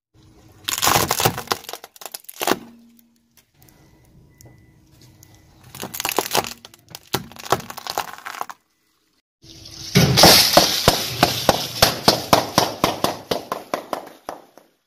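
A car tyre rolling over bundles of plastic drinking straws, which crack and snap under the weight in bursts. After a short break, a tyre rolls over a row of sealed potato-chip packets, a quick run of sharp crunches and pops, about four or five a second.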